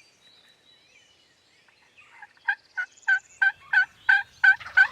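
Faint songbird chirping, then from about two seconds in a run of about eight loud turkey yelps, roughly three a second, to the end.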